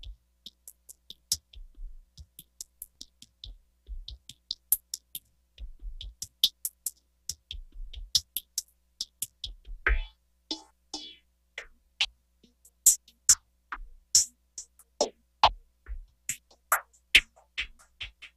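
Sparse electronic percussion: irregular, sharp clicks and ticks over a faint low hum, a few of them briefly pitched, like the opening of a drum-machine track.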